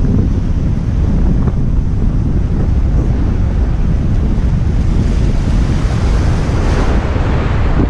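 Heavy wind buffeting the microphone over choppy sea and surf washing against a concrete jetty. A louder rush of noise swells about six to seven seconds in.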